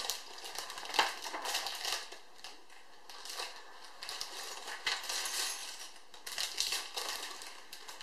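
Lego bricks being handled and pressed together: irregular light plastic clicks and rattles.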